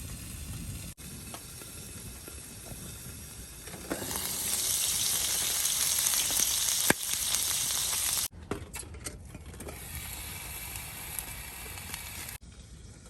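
Food sizzling as it fries in a pan. The sizzle swells much louder and brighter from about four seconds in to about eight seconds, then drops back.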